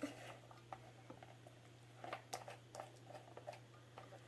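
Faint scattered clicks and taps of fingers working at the plastic cap of a baby oil bottle that will not open, over a steady low hum.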